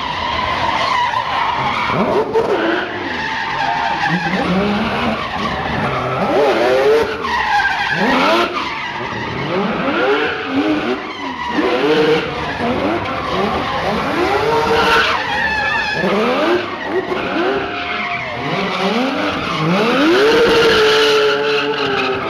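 Drift car engine revving hard in repeated rising surges, with tyres screeching as the car slides.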